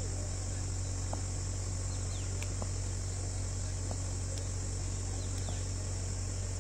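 Steady night ambience: a continuous high-pitched drone of insects over a low steady hum, with a few faint short chirps.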